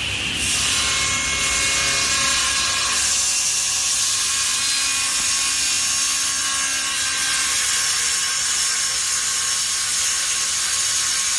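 Table saw running and cutting through a wooden board: a steady high-pitched whine with a hiss, growing stronger about three seconds in as the blade bites further into the wood.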